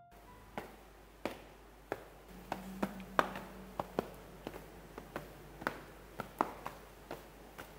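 Footsteps on tiled stairs: a run of sharp shoe taps, about two a second and unevenly spaced, over a faint room hum.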